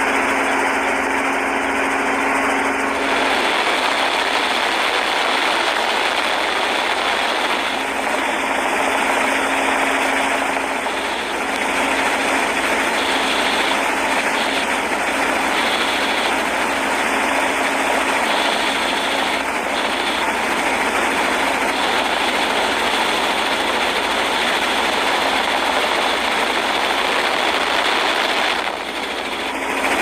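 Small motorboat under way: a steady engine hum under a constant loud rush of water and wind.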